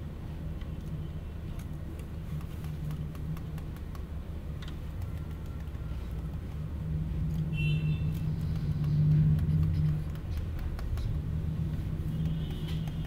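A steady low rumbling hum, like running machinery or traffic, that swells louder about eight to ten seconds in.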